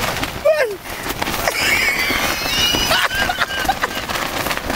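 Strong wind buffeting a tent, its fabric flapping and rattling hard and continuously. A short voice sounds about half a second in, and high wavering whistles come through the middle.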